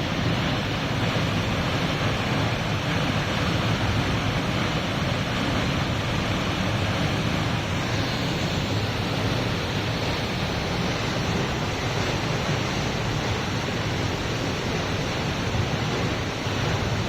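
Waterfall rushing: a steady, even roar of falling water that stays the same throughout.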